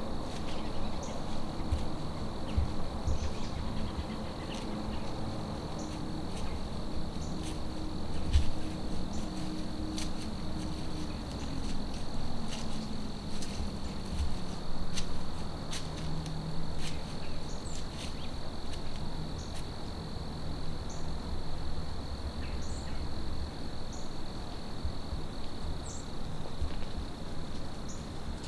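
Steady high-pitched chorus of crickets and other insects, with scattered faint ticks. Under it runs a low rumble and a faint low hum that slides down in pitch about twelve seconds in.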